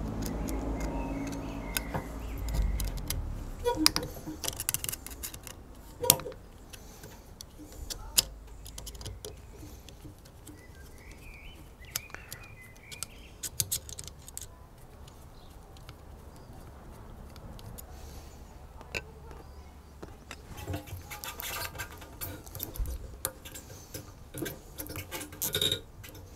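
Screwdriver working a worm-drive Jubilee hose clip on a motorcycle fuel-filter pipe: scattered small metallic clicks, taps and scrapes, busiest near the end.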